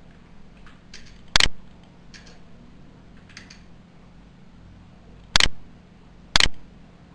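Computer mouse clicking: a loud sharp click about a second and a half in and two more about five and six seconds in, with a few much fainter clicks between. A faint steady hum runs underneath.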